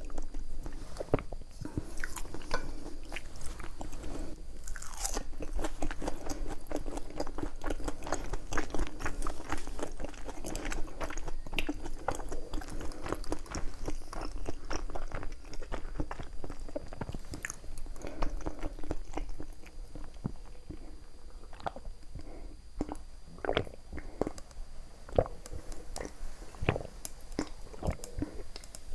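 Close-miked chewing of food, with many irregular crisp crunches and wet mouth clicks.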